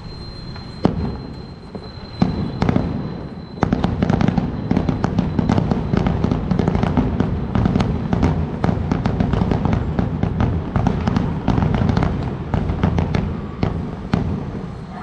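Sonny Fireworks sky shot aerial fireworks bursting overhead: a sharp bang about a second in and another just after two seconds, then from about three and a half seconds a dense, continuous crackling that thins out near the end.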